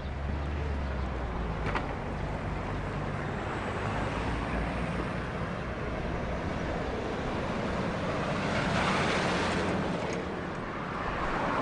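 Outdoor road traffic noise: a steady low engine hum under a haze of road noise, with a vehicle swelling past about nine seconds in and again near the end.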